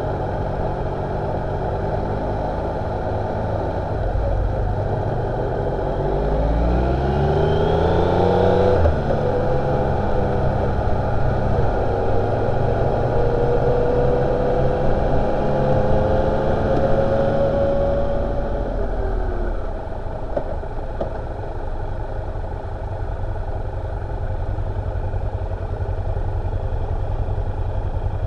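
Motorcycle engine accelerating, its pitch climbing for several seconds and breaking off sharply at a gear change, then pulling steadily with a slowly rising pitch. Near twenty seconds in the throttle closes and the engine settles to a lower, steady running sound.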